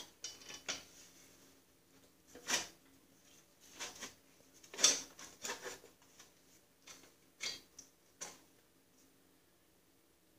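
Scattered light metal clinks and knocks as a sheet-metal fender is handled and fitted back onto a Snapper rear-engine rider's frame, the loudest about five seconds in.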